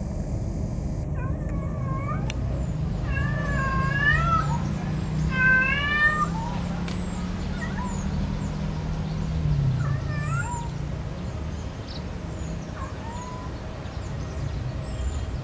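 Domestic cat giving a series of long, wavering meows that rise and fall in pitch, loudest around four to six seconds in and sparser toward the end: the mating call of a cat in heat seeking a partner.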